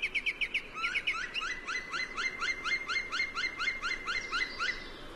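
A small bird calling a fast, even series of short rising notes, about four a second, that stops shortly before the end.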